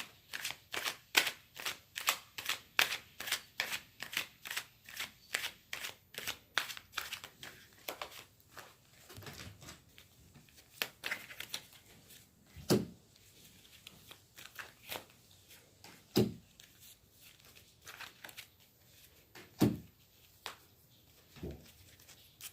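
A tarot deck being shuffled by hand: quick card slaps about four a second for the first eight seconds, then sparser flicks with three louder, duller knocks.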